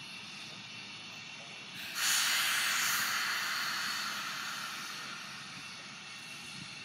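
Steam locomotive, Strasburg Rail Road 2-10-0 Decapod No. 90, letting off a sudden burst of steam about two seconds in: a loud hiss that dies away slowly over the next few seconds, over a faint steady hiss.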